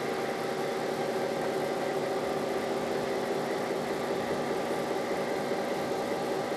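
Steady hum of a diesel locomotive engine pulling a slow-moving train, with a hiss of noise over it.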